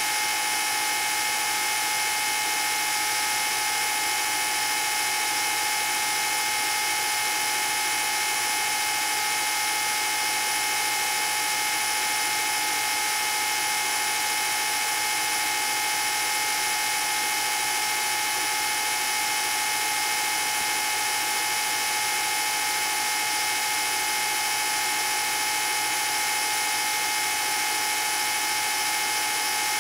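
Old home-movie film projector running: a steady mechanical whir and rattle with a constant high tone that holds without change.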